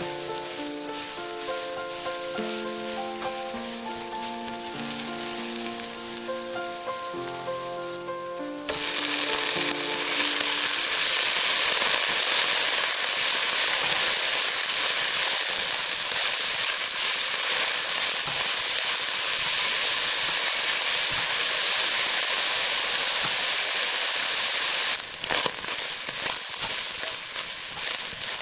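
Garlic and chili sizzling in hot oil in a nonstick pan, stirred with a silicone spatula. About nine seconds in, the sizzle suddenly gets much louder as minced beef goes into the pan, and it stays loud while the beef is stirred. It drops back somewhat near the end.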